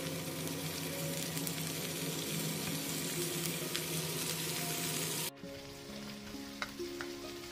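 Salted fish frying in oil in a wok, a steady sizzle. About five seconds in it cuts to a quieter sizzle of sliced shallots being sautéed, with a few sharp clicks of the spatula against the wok.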